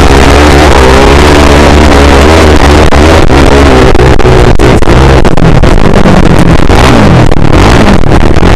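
Motocross bike engine revving up and down as the throttle is worked over the dirt track, the pitch repeatedly rising and falling. Heard from a camera mounted on the bike, loud enough to overdrive the recording.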